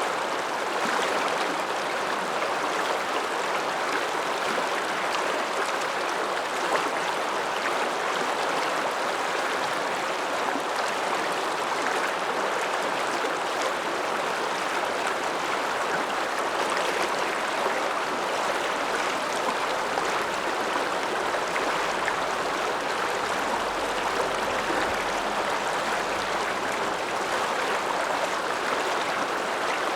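Alpine mountain river flowing, a steady, even rush of water.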